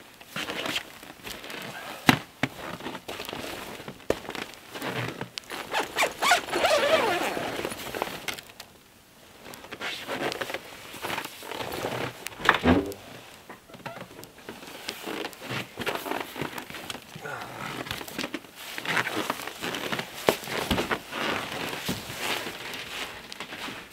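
Stiff canvas of a wall tent's door flap rustling and flapping as it is pulled open and pushed through, with scattered knocks and thuds and steps on snow.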